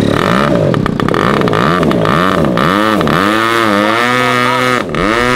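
Large RC model airplane's single-cylinder gasoline engine, just started, revved up and down about twice a second, then held at a steady fast run with a brief throttle dip near the end.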